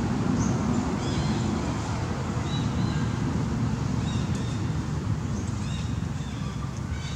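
Outdoor background of a steady low rumble, with small birds chirping in short high notes scattered through it.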